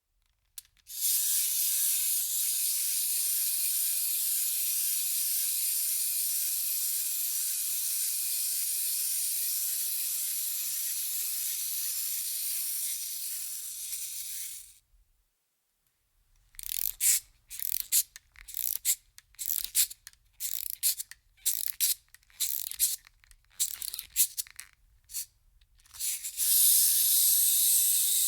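Wind-up toy's clockwork mechanism: a steady high rasping whirr for about fourteen seconds that stops abruptly. After a short pause comes a run of about twenty short, irregular rasps, like a key being wound in turns. Near the end a steady whirr starts up again.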